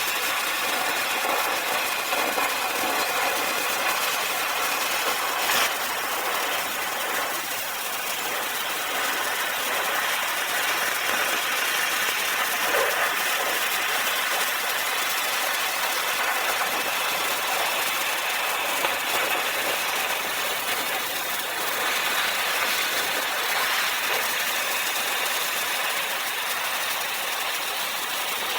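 Lit acetylene torch flame burning with a steady hiss, with an occasional faint pop.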